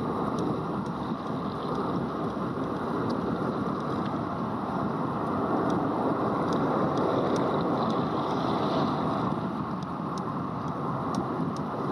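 Steady rushing of wind and water aboard a catamaran under way, with a few faint ticks scattered through it.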